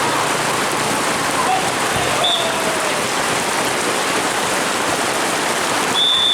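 Heavy rain falling steadily in a downpour. A short high whistle blast cuts through about two seconds in and a longer one near the end, typical of a referee's whistle.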